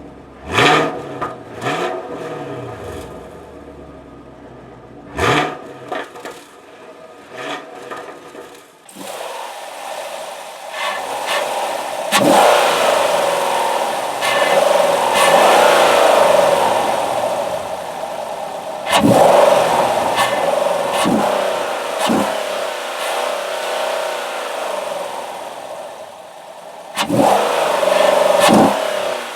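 2016 Chevrolet Camaro SS's 6.2-litre V8 being revved while the car stands still: a few short, sharp throttle blips, then from about a third of the way in, longer revs held up and let back down several times.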